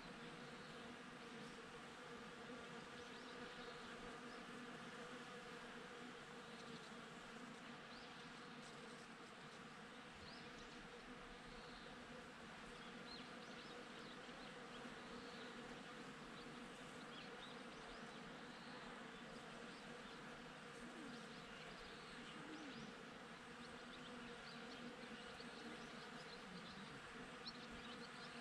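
Honeybees foraging at blossoms, a steady low buzzing hum of many wings.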